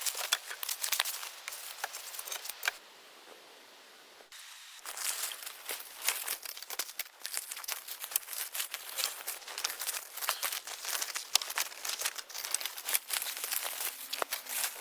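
Continuous crackling and rustling made of many small irregular clicks, broken by a quieter pause of about two seconds near the start.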